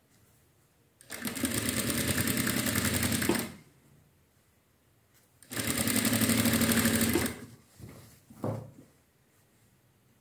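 Electric sewing machine stitching through fabric in two runs of a couple of seconds each: the first beginning about a second in, the second near the middle. It falls quiet between them while the fabric is repositioned.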